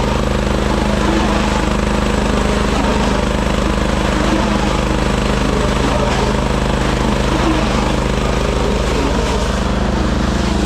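A farm machine's engine running steadily at a constant speed, with no change in pitch or level.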